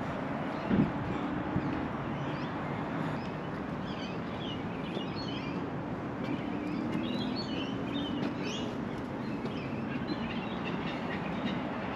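Birds chirping in short scattered calls over a steady outdoor background hum with a faint low drone. A single sharp thump about a second in is the loudest sound.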